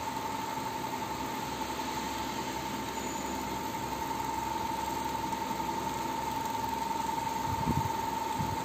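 Steady machine hum with a constant high whine. A few soft low knocks come near the end.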